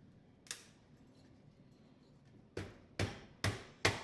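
Sharp knocks on a dishwasher panel as it is worked back into place: one knock about half a second in, then a quick run of four near the end, about two and a half a second.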